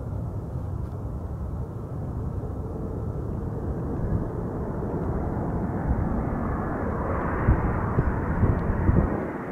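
Aircraft engine noise, a rushing sound with no clear tone that builds steadily and is loudest near the end.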